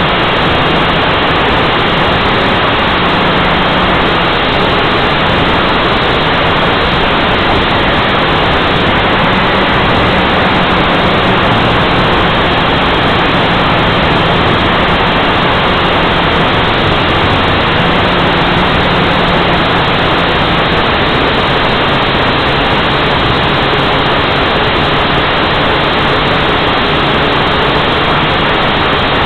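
HeliMax 230 Si quadcopter's motors and propellers heard from its own onboard camera: a loud, steady rushing noise with a faint hum that shifts slightly in pitch as the drone manoeuvres.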